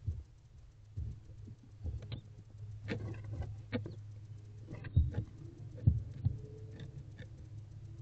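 Irregular taps, scratches and rustles of barn owls shifting on the pellet-strewn floor of a wooden nest box, with a few sharper knocks about five and six seconds in. A low steady hum runs underneath.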